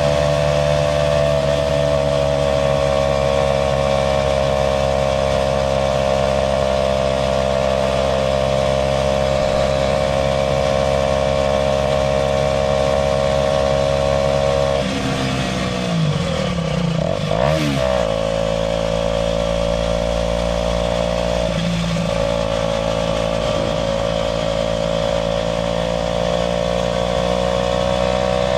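Aprilia RS4 125's single-cylinder four-stroke engine running at steady cruising revs on the move. A little past halfway the revs drop and climb back over a few seconds, with another brief dip shortly after.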